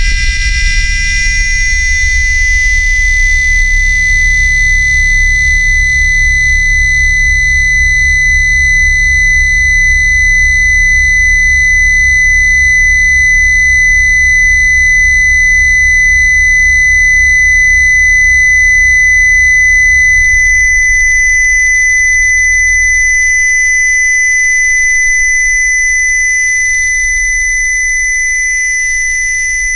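Loud electronically generated test tones: a piercing steady high tone with fainter higher tones above it, over a deep low hum that pulses rapidly and makes the signal waver. About twenty seconds in, the low hum drops back and the upper tones change texture.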